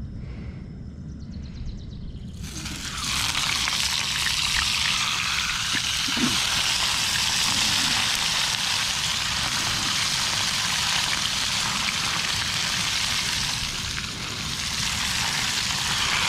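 Grayling frying in hot oil in a pan: a loud, steady sizzle that starts suddenly about two and a half seconds in.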